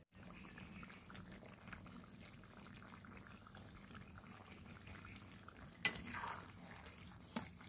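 Fish curry with potato and papaya simmering in a pan, a faint steady bubbling. A sharp knock comes about six seconds in, and a lighter one near the end.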